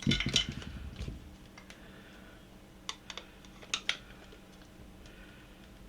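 Small clicks and clatter from the plastic and metal parts of a coffee grinder being handled, as its stiff blade is turned by hand, over a faint steady hum. There is a cluster of clatter at the start, then a few light ticks.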